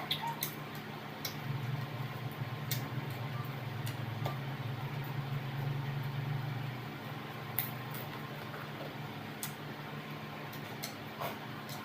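Eating sounds: scattered small clicks and smacks of chewing and handling food, over a steady low hum that grows louder from about a second and a half in until about seven seconds.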